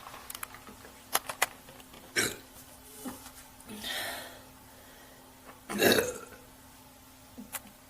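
A woman burping on purpose: a few sharp clicks near the start and a breathy exhale around four seconds in, then one short burp about six seconds in.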